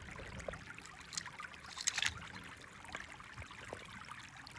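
Faint handling of plastic toy cars and track pieces: scattered small clicks and rustles, with a brief louder rustle about two seconds in.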